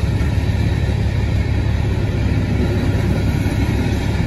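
A train rolling past a railroad crossing, a loud, steady rumble heard from inside a vehicle's cab with its engine idling.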